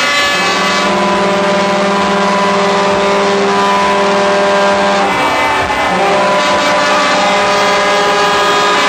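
Truck air horns blowing a long, steady multi-tone chord. They break off about five seconds in and sound again a second later on a slightly different chord.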